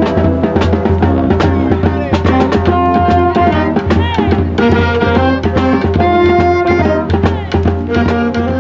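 Marching band playing: wind instruments hold pitched notes over a steady beat of drums.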